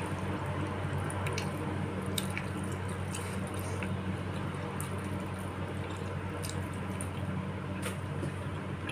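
Close-miked eating of bakso meatball soup with spinach: wet, squishy chewing and slurping, with scattered short clicks, over a steady low hum.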